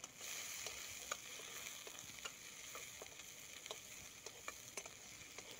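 Sliced onions and green chillies frying in hot oil in a metal kadhai, stirred with a metal ladle: a faint steady sizzle with scattered small clicks.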